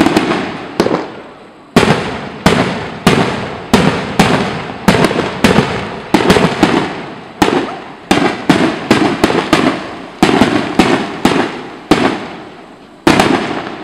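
Aerial firework shells bursting in quick succession: some two dozen sharp bangs, one every half second or so, each trailing off as it fades. A short lull comes before one last bang near the end.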